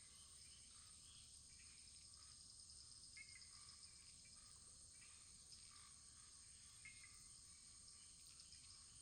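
Wood fire burning softly: a faint steady hiss with small, scattered crackles about once a second.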